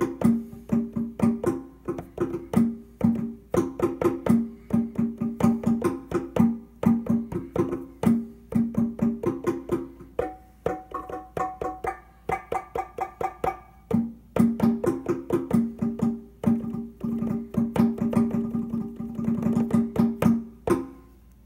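Plucked-string-like instrument notes triggered from the drum pads of an Akai MAX49 keyboard controller, played in quick repeated rhythmic patterns of several notes a second. Around the middle the notes move higher for a few seconds before the lower pattern returns.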